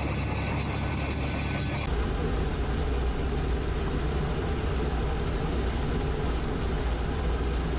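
Kubota combine harvester running steadily as it cuts and threshes adzuki beans. About two seconds in, the sound shifts to a heavier low rumble.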